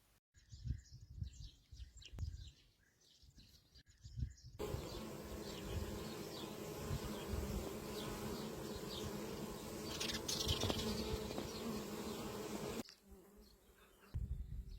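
Bees buzzing: faint scattered buzzing at first, then about four and a half seconds in a steady, fuller buzzing hum that lasts some eight seconds and cuts off suddenly, followed by fainter buzzing again.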